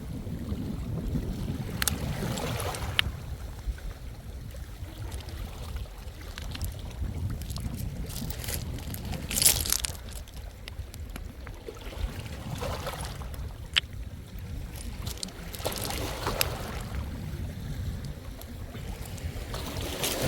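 Small sea waves washing onto a shallow shore, a new wash swelling and fading every few seconds, over a steady low rumble of wind on the microphone. A few sharp clicks.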